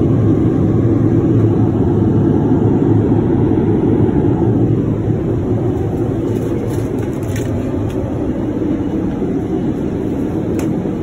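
Steady in-flight cabin noise of a Boeing 787, the rush of engines and airflow, easing slightly about halfway through. A few faint clicks come in the second half.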